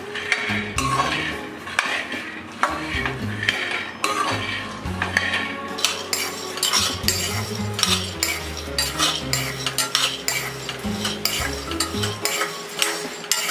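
Metal spatula stirring and scraping raw peanuts around a steel kadhai as they dry-roast, the nuts rattling and clinking against the pan in quick irregular strokes. Background music plays underneath.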